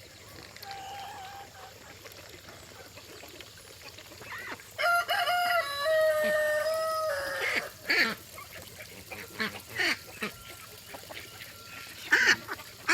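A rooster crows once, about five seconds in: one long call of several held notes stepping down in pitch. A few short bird calls follow.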